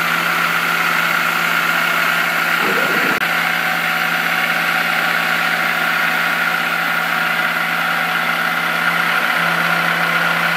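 Milling machine running with a small end mill cutting an aluminium plate: a steady whine over a low hum and hiss, with a brief low thump about three seconds in.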